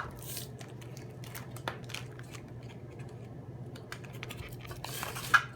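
Small clicks and rustles from handling a voltmeter and its test leads, over a steady low hum, with a sharper click about five seconds in.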